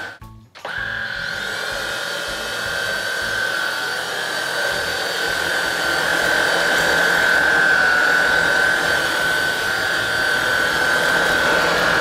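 V-Scan 300 cordless stick vacuum running: a steady high-pitched motor whine over the hiss of suction, with a short gap just after the start.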